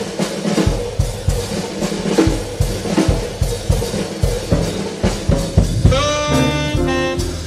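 Small jazz group playing live: drum kit busy with many strikes over upright bass, then a saxophone comes in about six seconds in with a run of notes.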